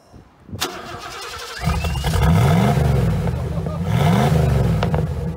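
A V8 engine starting up about a second and a half in, then revved twice, its pitch rising and falling back each time.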